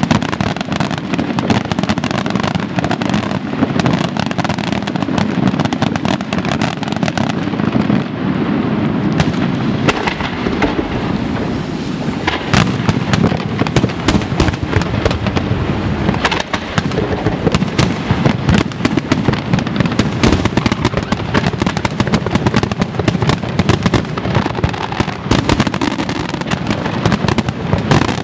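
Aerial fireworks shells bursting in rapid, overlapping succession: a continuous barrage of bangs with no let-up.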